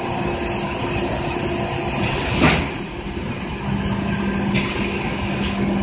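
Automated card-packaging machine running with a steady mechanical hum, broken by one brief loud hiss about two and a half seconds in.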